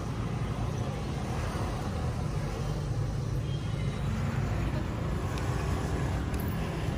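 Steady low outdoor background rumble, with a few faint clicks near the end.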